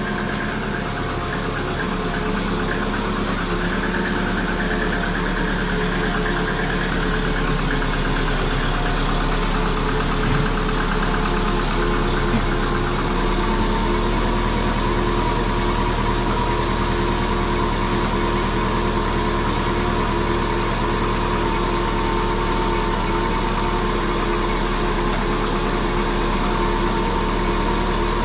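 Subaru Forester GT's turbocharged flat-four engine running at low revs as the car creeps forward, settling into a steady idle about halfway through. The owner suspects an exhaust leak on it.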